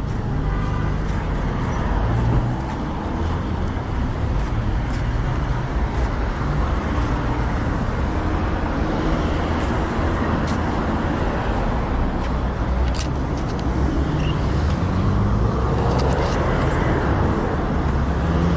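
Steady city road traffic: cars and vans driving past on a busy street, a continuous low rumble of engines and tyres.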